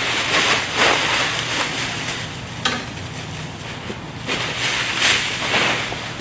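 Plastic stretch wrap rustling and crinkling in swells as it is handled and stuffed into a hand-operated plastic baler, with one sharp click about two and a half seconds in.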